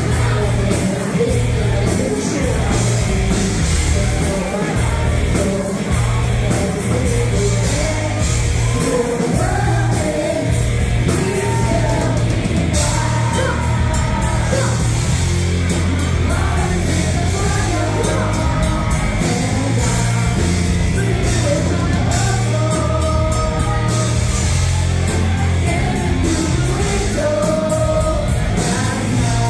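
Live rock band playing loud and steady, with a singer on the microphone over electric guitar and drums.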